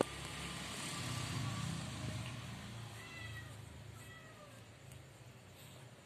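Domestic cat meowing faintly, two short falling mews about three and four seconds in. A low rumble runs under the first two seconds.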